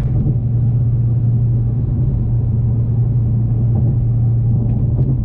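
Car engine and road noise as a steady low drone while cruising, heard inside the cabin.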